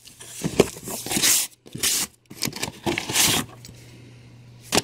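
Packaging and a cardboard box being opened and handled: a run of short tearing and rustling noises, then a quieter stretch with a sharp click near the end.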